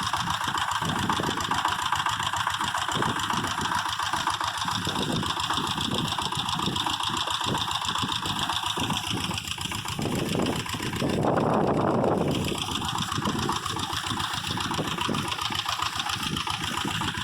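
An engine-driven machine running steadily with a rapid, even beat. About eleven seconds in, it swells into a louder rushing sound for a second or so, then settles back.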